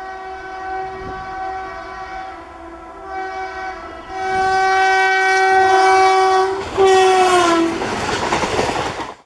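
Indian Railways electric locomotive's horn sounding in repeated long blasts as the express approaches. The last blast is the loudest and drops in pitch as the locomotive passes. The coaches then roll by with a rushing rumble and wheel clatter over the rails.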